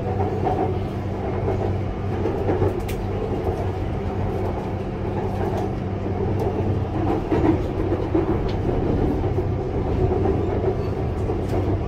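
Interior running noise of a CRRC Changchun EMU-B3 Skytrain car under way: a steady rumble of wheels on rail with a low electric hum, broken by a few sharp clicks from the track.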